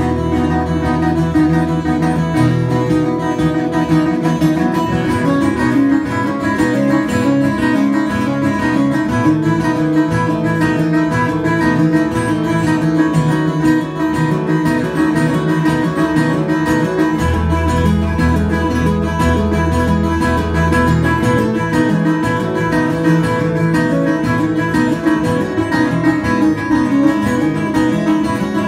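Two acoustic guitars playing a duet together, notes picked in a steady continuous flow, with held low bass notes at the start and again about two-thirds of the way through.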